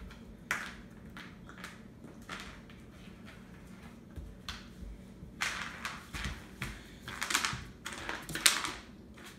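A dog playing with an ice cube on a hardwood floor: scattered clicks and taps of claws and ice on the wood, busier and louder in the second half, over a low steady hum.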